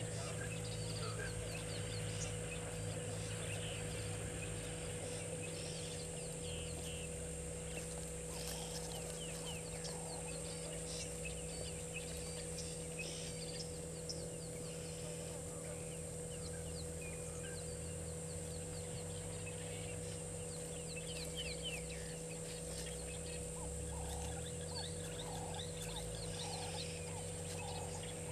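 Birds chirping and calling in the bushveld, many short, high chirps over a steady hum. Near the end comes a run of about eight evenly spaced, lower call notes.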